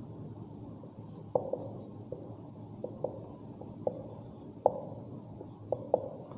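Marker pen writing on a whiteboard: several short, sharp taps and clicks at irregular intervals as the tip strikes and lifts from the board, over a steady low room hum.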